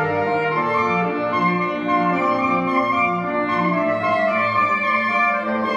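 Saxophone quartet, with soprano and baritone saxophones among the four, playing a classical piece: several held notes in harmony over a low line of short repeated notes, about two a second, through the middle of the passage.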